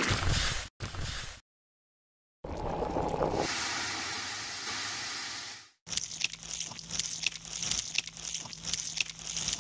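Stop-motion sound effects: two short bursts of wet mud scraping, a silent pause, then a steady hissing gush for about three seconds as white fluff pours out of a soda can. After that, a steady crackling, squishing noise with a low hum underneath as the toy eels slide out.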